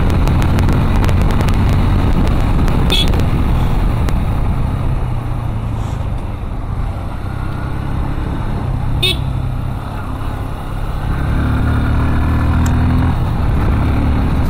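A vehicle engine running steadily while under way, with road and wind rumble; the engine note changes about two-thirds of the way through.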